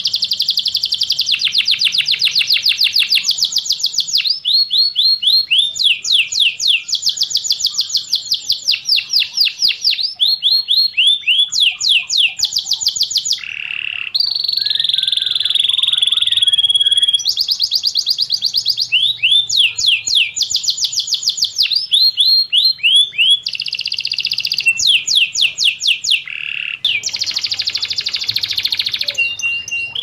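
Domestic canary singing a long, unbroken song of fast trills and rolls, one run of rapidly repeated notes giving way to the next every second or two, with two brief pauses, one about halfway through and one near the end.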